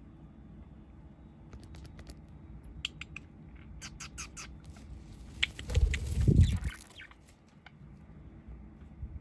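Small pet bird moving about: a run of light clicks and taps over several seconds, with a loud low rumble of movement close to the microphone about six seconds in.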